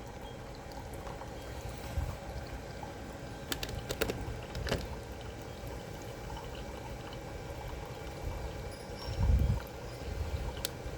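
Instant Solo single-serve coffee maker brewing: a steady low running sound with coffee trickling into the cup. A few sharp clicks come between about two and five seconds in, and a dull low thump about nine seconds in.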